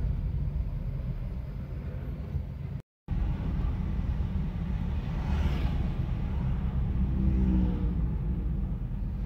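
Steady low rumble of a car's engine and road noise heard from inside the cabin while driving in city traffic, with a louder swell of passing traffic noise a little past the middle. The sound cuts out for a moment about three seconds in.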